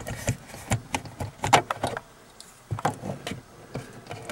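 Irregular sharp plastic clicks and knocks, about a dozen, from handling the storage compartment of a car's overhead console as a pair of glasses and a small flashlight are put into it.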